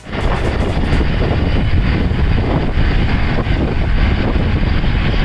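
Wind buffeting the microphone, a loud, rough, steady rumble that cuts in abruptly, as from travelling in the open on a moving vehicle.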